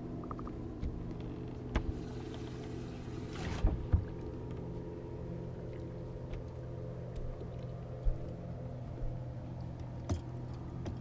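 Steady low hum from the bass boat's running electric gear, with scattered knocks on the boat deck. A brief rush of hiss about two seconds in ends in two sharp thumps.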